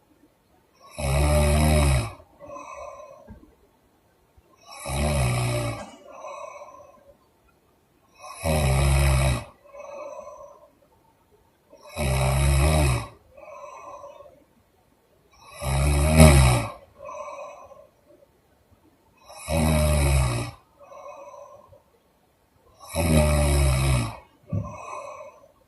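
A woman snoring loudly with her mouth open: seven heavy, rattling snores, one about every three and a half seconds, each followed by a softer breath out.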